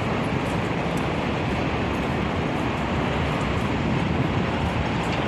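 Steady low rumbling outdoor background noise with no single clear source.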